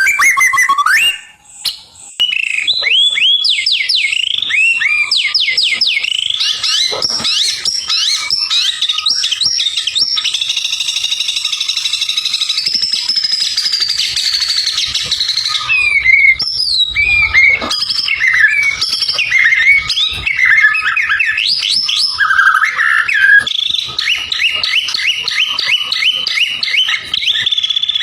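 White-rumped shama (murai batu) singing a long, varied song. It has quick runs of rising whistled notes, a held warbling stretch in the middle, and more rapid rising notes near the end.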